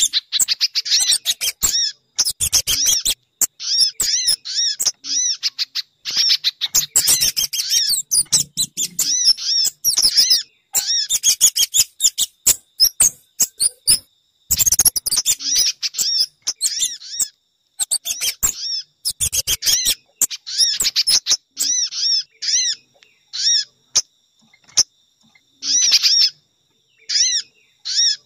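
Bird-lure recording of small-bird calls made to draw sogon (crimson sunbird), pijantung (spiderhunter) and kemade: rapid series of high, arched chirps in bursts a second or two long, with short gaps between.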